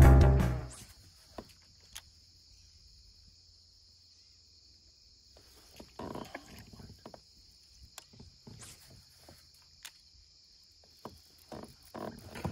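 A music track fades out in the first second. Quiet outdoor ambience on calm water follows: a steady faint high hiss, scattered light clicks, and a few brief rustles about six seconds in and near the end, from an angler handling rod and gear in a kayak.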